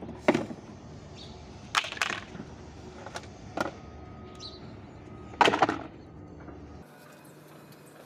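Hard plastic parts of a children's ride-on toy car's seat knocking and clattering as they are handled and pulled loose: several sharp knocks, the loudest cluster about five and a half seconds in.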